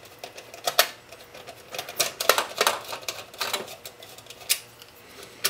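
Scattered sharp clicks and taps of a small precision screwdriver and hands working on a metal-cased cable box, taking out its screws.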